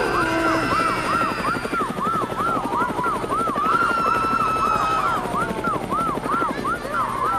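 Helicopter rotor chop mixed with a police siren in fast yelp mode, its tone rising and falling about three times a second. Higher wavering cries of a panicking crowd come and go over it, clearest in the middle.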